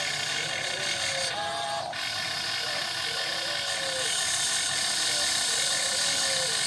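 Electric gear motors and plastic gearboxes of an RC model excavator running under load, a steady gritty whirring with short falling whines every second or so as the motors change speed.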